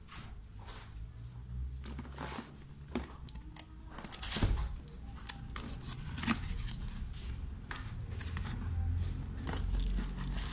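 Cardboard box being unpacked by hand: the plastic wrap and tape are peeled and torn off and the flaps pulled open, a run of irregular crinkles, scrapes and sharp clicks over low handling bumps, with the loudest crack a little under halfway.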